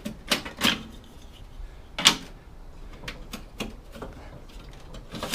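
Metal electronics modules being handled on a workbench: a string of irregular clicks and clacks, the loudest about two seconds in.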